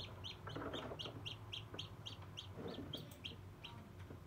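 A newly hatched chick peeping steadily, about four short, high, falling peeps a second.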